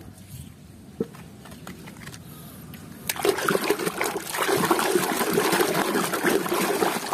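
Water splashing and sloshing in a plastic tub as a hand swishes and scrubs a plastic toy under the surface. It is faint at first and gets much louder about three seconds in.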